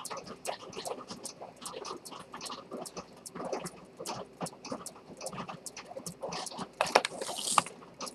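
Steady ticking of a Dent detent (chronometer) escapement fusee pocket watch movement running in its silver case. About seven seconds in there is a louder clatter and scrape as the watch case is handled.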